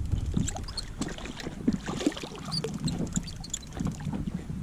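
Water slapping and lapping against a kayak's hull while a hooked catfish splashes at the surface beside it: an irregular run of small splashes and knocks. Near the end the fish is lifted dripping out of the water.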